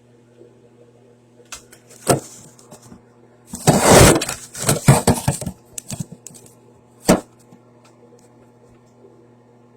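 A phone falling and clattering: a loud burst of knocks and rattles about three and a half seconds in, with a few handling knocks around it and one sharp knock near seven seconds, over a steady low hum.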